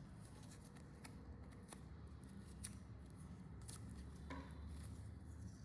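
Faint handling noises from a braided USB-C cable: a few soft clicks, then a brief rustle about four seconds in, over a low room hum.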